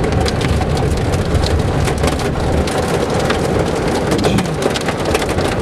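Small hail and heavy rain pelting the car's roof and windshield, heard from inside the cabin: a dense, steady rattle of sharp clicks over the low rumble of the moving car.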